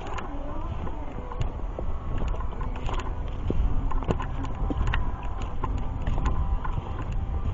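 Footsteps on a dirt and leaf trail, with sharp irregular crunches about twice a second, over a steady low rumble of wind and handling noise on the handheld microphone.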